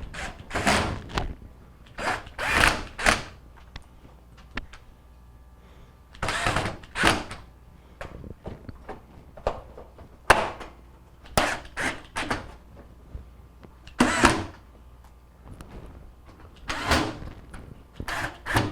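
Irregular knocks, scrapes and clunks, about a dozen short separate bursts, from handling the microwave's metal outer shell and fastening it during reassembly.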